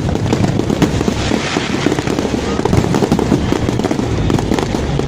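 A fireworks display: many bangs and crackles bursting in rapid, overlapping succession with no let-up.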